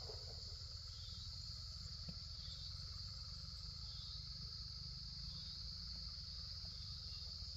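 Steady, high-pitched insect chorus droning without a break, over a low rumble.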